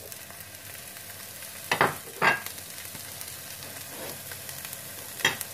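Chopped onion and garlic frying in oil in a nonstick pan, with a steady sizzle. Three sharp knocks against the pan cut through it, two close together about two seconds in and one near the end.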